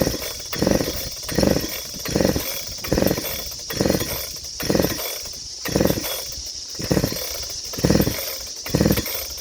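Recoil starter of a new Neo-Tec NH8120 chainsaw, a Husqvarna 3120 XP clone, pulled about eleven times, roughly once a second. The engine turns over with each pull but never fires. The carburettor is wet and the choke butterfly is stuck closed.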